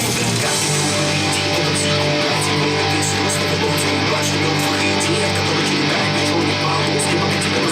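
Guitar-led music without vocals, with strummed guitar and bass, played back through S90E loudspeakers fitted with Alphard mid-range and tweeter drivers, as a loudspeaker sound test. It plays at a steady level throughout.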